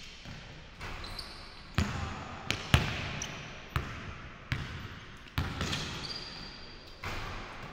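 A basketball bouncing on a hardwood gym floor, about seven irregular bounces that echo in the hall, the loudest a little under three seconds in. A couple of short, high sneaker squeaks come from the court.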